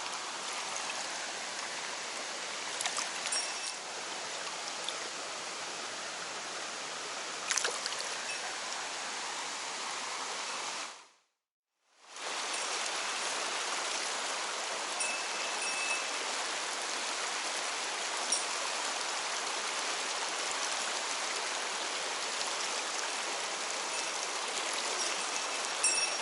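Mountain stream rushing over rocks, a steady water noise. It fades out to silence for about a second midway and then comes back. A couple of short clicks or knocks sound a few seconds in.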